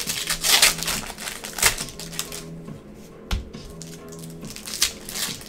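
Gloved hands flipping through and handling a stack of Bowman Chrome trading cards and packs: repeated crisp rustling and clacking, with a dull knock on the table a little past three seconds in. Background music plays underneath.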